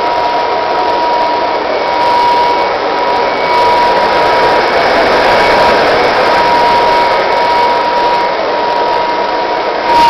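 Restored Kirby Model 512 upright vacuum cleaner running on carpet: a steady motor whine over the rush of air, louder for a few seconds in the middle as it is pushed close.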